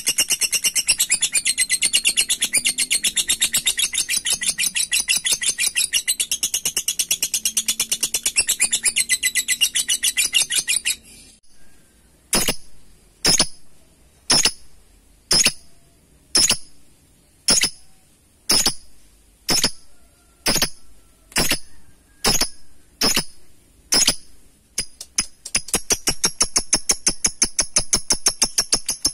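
Lovebird's ngekek, a long rapid rattling trill of high notes. About eleven seconds in it breaks off into single sharp chirps roughly one a second, and the fast trill starts again near the end.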